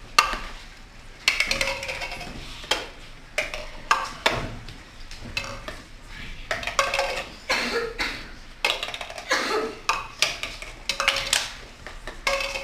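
Plastic cups being lifted off stacks and set down on a tabletop and a tic-tac-toe board: an irregular run of light taps and clatter.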